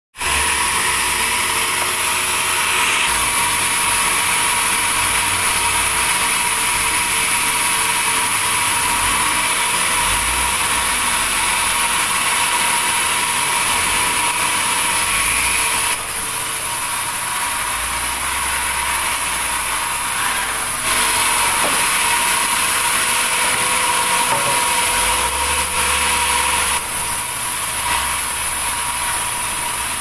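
Sawmill saw cutting a log of red durian wood: a loud, steady, high-pitched rasping that shifts abruptly a few times as the cut goes on.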